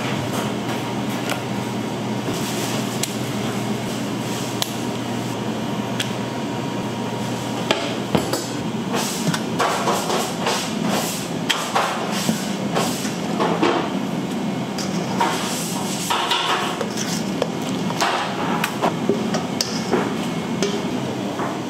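Bakery kitchen work: repeated knocks and taps of tools on a work surface over a steady machine hum. The knocks come more often after about eight seconds.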